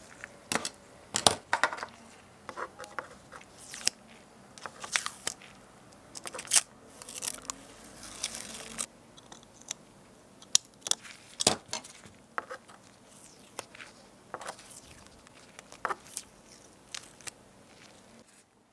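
Irregular small clicks and taps of a hobby knife on a plastic cutting mat, with a longer rustle about halfway through as masking tape is peeled off the mat.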